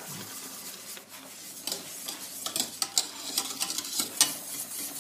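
Stirring a thick egg-yolk, sugar and flour mixture in a stainless-steel bowl, the utensil clicking repeatedly against the metal from about a second and a half in, over a steady hiss.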